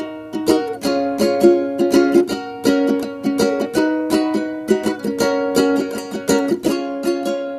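Background music: plucked strings picking out a quick melody, several notes a second.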